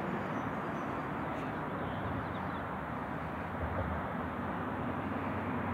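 Steady outdoor background noise, an even low rumble and hiss with no distinct event standing out.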